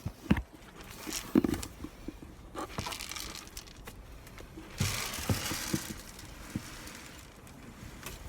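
Crinkling and rustling of handled material, with several sharp knocks near the start and a longer burst of rustling about five seconds in.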